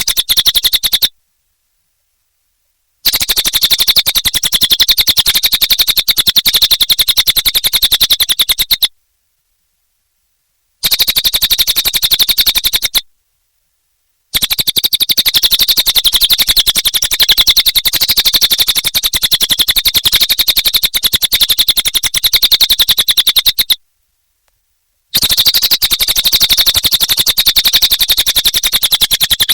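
Cililin songbird calling non-stop in a rapid, high-pitched rattling trill. The trill comes in long bouts of several seconds, broken by short, completely silent gaps.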